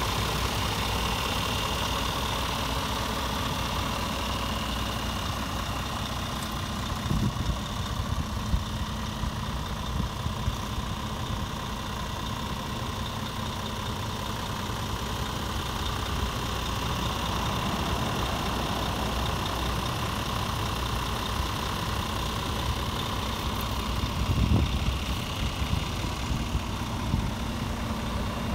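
Scania G450 Euro 6 tractor unit's 13-litre straight-six diesel idling steadily, with a few brief thumps.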